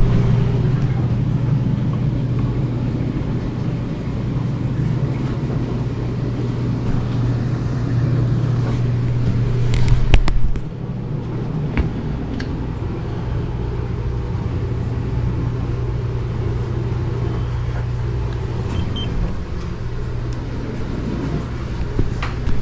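A vehicle being driven: a steady low engine drone with road rumble, and a brief louder clatter about ten seconds in.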